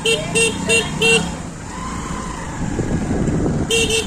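Vehicle horn honked in a rapid run of short beeps, about three a second, through the first second, then again near the end, over steady traffic and engine noise.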